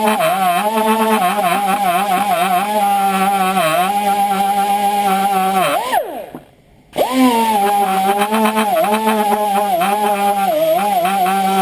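Pneumatic air tool spinning a steel wire brush against a carbon-clogged engine valve, its pitch dipping again and again as the brush bears on the valve. About six seconds in it winds down and stops for under a second, then spins back up.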